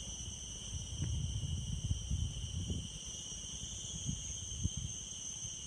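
Steady, high insect chorus of the river bank, like crickets, carrying on unbroken. Underneath it runs a low rumble that swells between about one and three seconds in, with a couple of dull knocks near the end.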